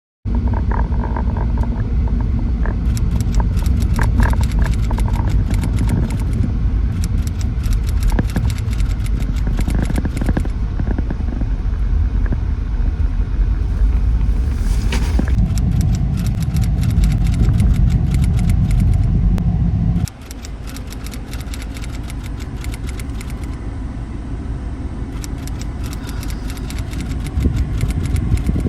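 Moving car heard from inside, a steady low road rumble with many small clicks and rattles. The rumble drops suddenly about twenty seconds in.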